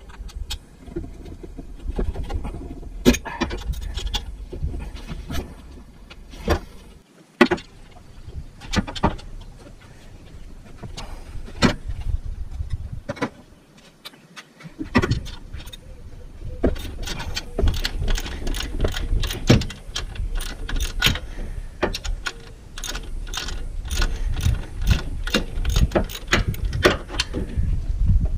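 Hand tools at work on the transmission mount bolts: irregular metallic clicks and knocks, coming thicker in the second half, over a low rumble. The sound cuts out briefly twice, about 7 and 14 seconds in.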